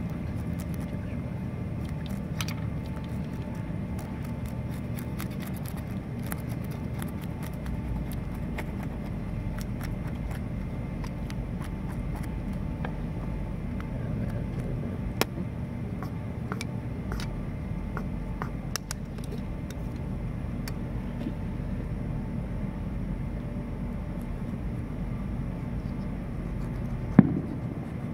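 A steady low rumble, with scattered small clicks and scrapes from a knife working over small baitfish. A sharp knock about halfway through, and a louder one near the end.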